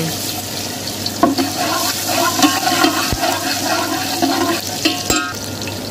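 Chopped garlic sizzling as it hits hot oil with curry leaves in a large metal pot, stirred with a steel ladle that knocks against the pot twice.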